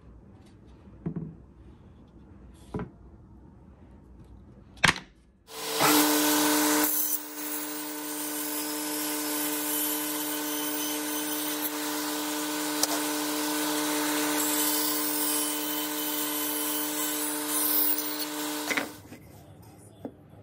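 Bandsaw starts about five seconds in, just after a sharp click, and runs with a steady hum while its blade cuts through a thick walnut board. It stops abruptly about thirteen seconds later. A few light knocks from handling the board come before it.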